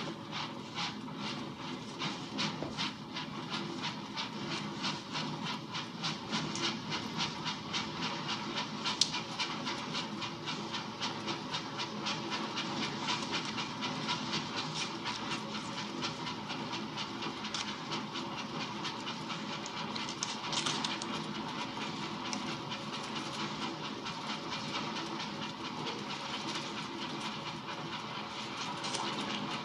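Railway carriage running at speed, its wheels clicking over the rail joints in a fast, even clickety-clack of about three to four clicks a second over a steady rumble. A louder sharp knock comes about nine seconds in.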